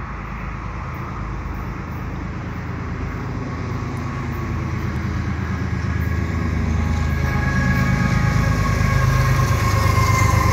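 CN GE ES44AC diesel-electric locomotive leading a double-stack container train as it approaches and draws alongside. Its low engine rumble grows steadily louder, and a steady whine joins it about halfway through.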